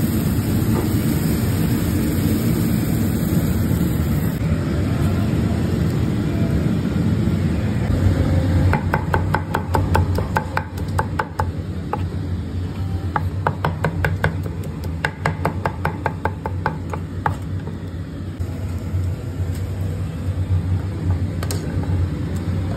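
A knife chopping grilled arrachera (skirt steak) on a steel taco griddle: three runs of quick, sharp metallic knocks, about six a second, in the middle, over a steady low rumble.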